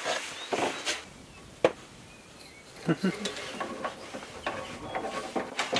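A few light clicks and knocks from hands handling sink fittings and hose under a sink, with one sharper click and a few brief murmurs of a voice.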